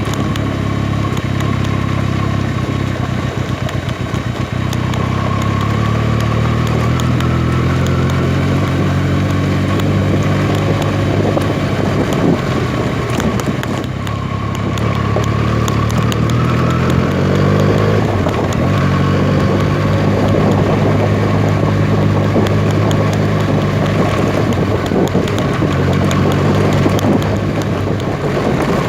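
Benelli TNT 300 parallel-twin motorcycle engine running under way, its pitch falling and rising with the throttle, with wind buffeting the microphone.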